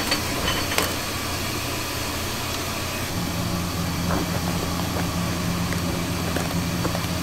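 Steady machine hum of kitchen equipment, with a few light crackles of plastic film in the first second as a cooked crab shell is wrapped on a film-wrapping machine. A low steady tone joins the hum about three seconds in.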